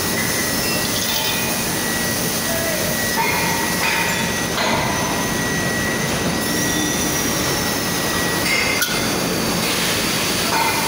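Steady industrial din of a working iron foundry floor, with a thin high whine that stops about two seconds before the end and a few faint metallic clinks.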